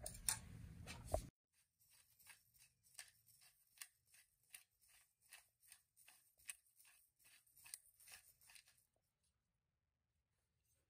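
Hand pepper grinder being twisted, crunching black peppercorns: a run of faint, irregular crunchy clicks, about three a second, that stops shortly before the end.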